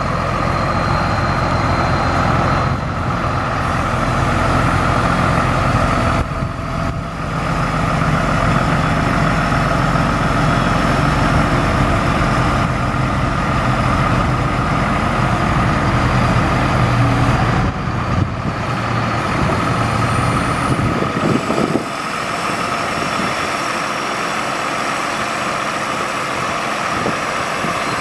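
1999 Ford F-Series mechanics truck's engine running while its hydraulic system drives the National N80 crane boom, a steady whine over a deep engine drone. The deep drone drops away about three-quarters of the way through.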